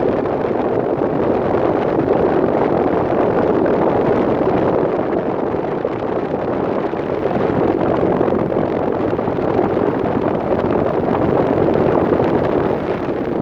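Steady rush of air buffeting the microphone, loud and even, dropping away abruptly at the end.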